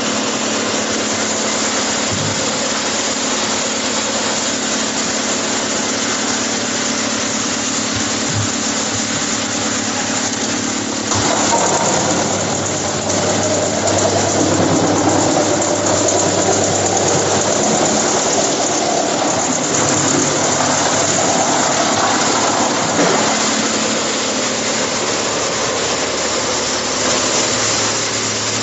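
Drum wood chipper running steadily. About eleven seconds in it turns louder and rougher for some twelve seconds, with a wavering pitch, as wood is fed through the drum and chipped, then settles back to its steady hum.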